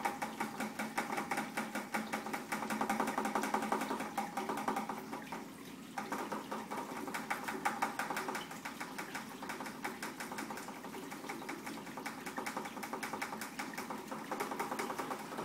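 Wort running through a tube into a glass carboy and splashing into the foam already inside it, a steady bubbling patter of liquid filling the fermenter. It dips briefly about six seconds in.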